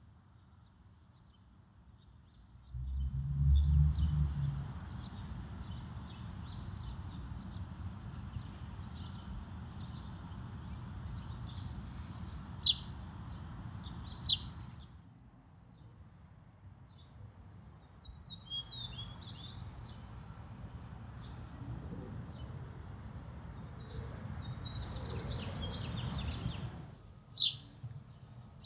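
Small birds chirping and twittering outdoors, short high calls scattered throughout. Under them a low rumbling noise sets in about three seconds in, loudest at its start, eases off briefly in the middle and stops just before the end.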